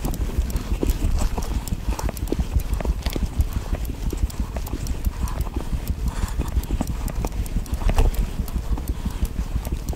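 Mountain bike rolling fast over a hard-packed, rocky dirt trail: a dense, irregular clatter of small knocks and rattles from the bike and its tyres over the stones, over a steady low rumble of wind on the microphone.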